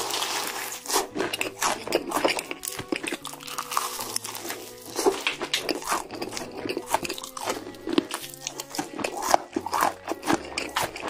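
Close-miked crunching bites into a fried chicken drumstick coated in crushed Hot Cheetos, the crisp crust cracking again and again, over soft background music with a slow bass line.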